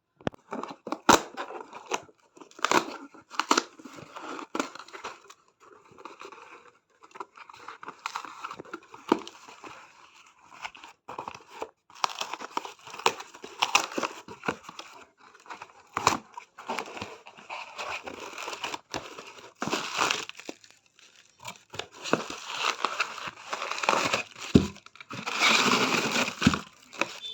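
Packaging being torn open and crumpled by hand: irregular tearing, crinkling and rustling with sharp clicks, busiest near the end.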